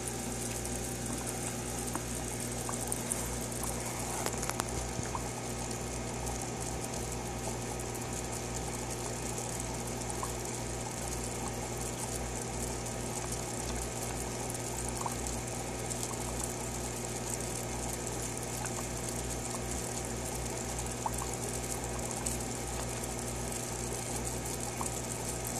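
Aquarium filter running: a steady hum with water trickling and bubbling, and a few faint clicks.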